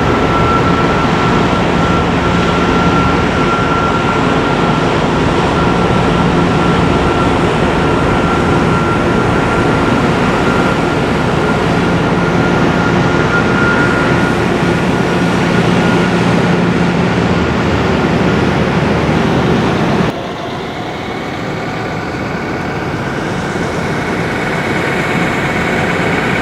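Passenger train in motion, a loud steady rumble with a high steady tone. About twenty seconds in it cuts abruptly to a quieter sound in which several tones slowly rise in pitch.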